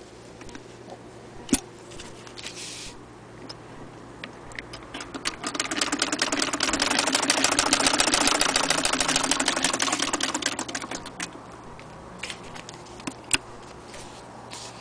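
Hand-cranked Singer Model 66K sewing machine stitching through fabric: a rapid run of even clicking stitches that picks up about four and a half seconds in, is loudest midway, and slows to a stop around eleven seconds. A single sharp click about a second and a half in, and a few light handling knocks near the end.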